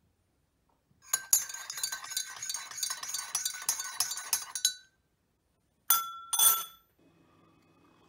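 Metal teaspoon stirring tea in a ceramic mug, clinking rapidly against the inside for almost four seconds. Then come two louder clinks about half a second apart, each ringing briefly.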